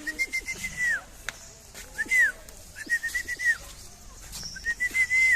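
A bird calling over and over: four whistled calls, each a held high note, some broken into little steps, ending in a quick downward slide.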